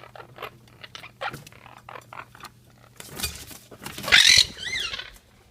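Quaker parrots (monk parakeets) making small scrabbling clicks and taps, then one loud, harsh squawk about four seconds in.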